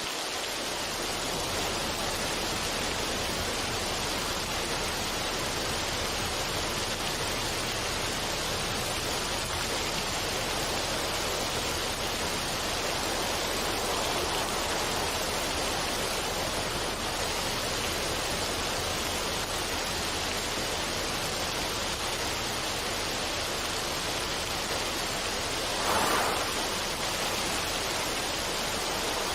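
Running water, a steady even rush with no change in rhythm, and one brief louder swell near the end.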